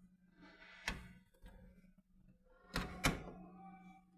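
Tumble dryer door being handled: a sharp knock about a second in and two more close together near three seconds, with faint rattling between.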